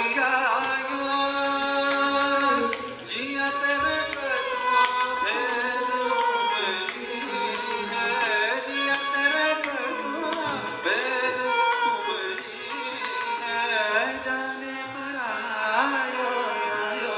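Recorded dance song in Indian classical style: a singer's voice with a gliding, ornamented melody over steady instrumental accompaniment.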